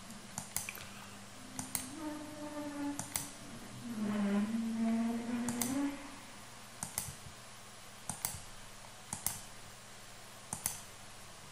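Computer mouse clicking about once a second while cut points are placed with Blender's knife tool. A man hums without words for a few seconds in the middle.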